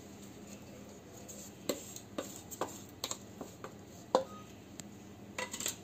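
A run of light clicks and taps, irregularly spaced, with one sharper knock about four seconds in and a quick cluster near the end: small kitchen containers being handled and set down around a stainless steel mixing bowl.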